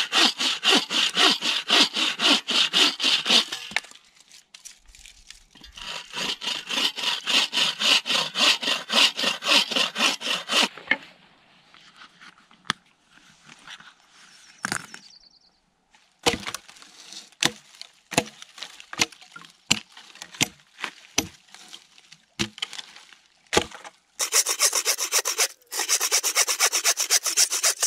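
Hand saw cutting firewood in three bouts of quick, even back-and-forth strokes. Between the second and third bouts there is a run of separate sharp cracks.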